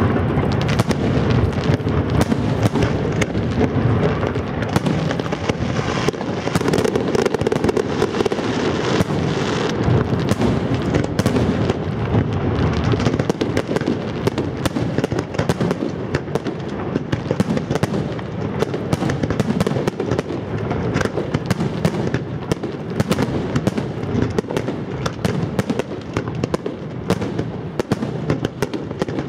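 Aerial fireworks display going off densely and without pause: many rapid bangs overlapping with crackling.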